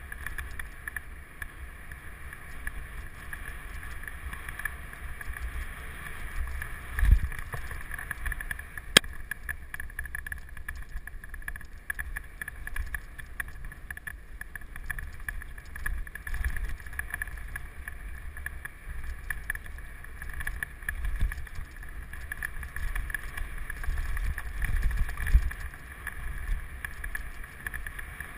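Mountain bike riding fast down a dirt forest trail: steady rumble and rattle from the tyres and bike on the rough ground, with wind on the microphone. Heavy thuds from bumps come about seven seconds in and again near the end, and a single sharp click about nine seconds in.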